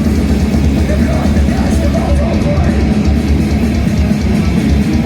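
Grindcore band playing live: heavily distorted electric guitars, bass and drums in a loud, dense, unbroken wall of sound, recorded on a mobile phone in the crowd so the low end is heavy and smeared.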